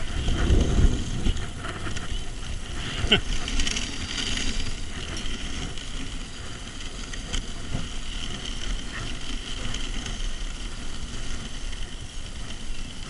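Dog sled moving over a snowy trail: a steady hiss and scrape of the runners on snow, with rumbling bumps in the first second or so and a sharp knock about three seconds in.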